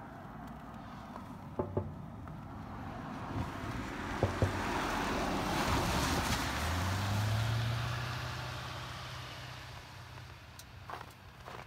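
A pickup truck driving past on the road: its tyre noise swells, peaks about six seconds in, then fades as it moves away. A low, steady engine hum carries on behind it.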